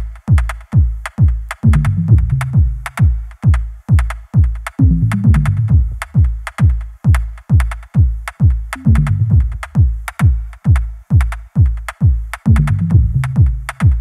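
Electronic background music with a steady kick-drum beat about twice a second and a low bass riff that returns every few seconds.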